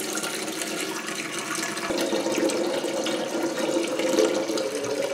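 Filtered tap water running in a thin stream from a faucet-mounted water filter into a large cooking pot in a sink, filling it. It gets slightly louder about two seconds in.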